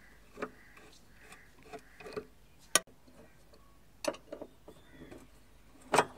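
Screwdriver working the screws of a gas hob burner, with irregular small metal clicks and taps; two sharp ticks, about three seconds in and near the end, are the loudest.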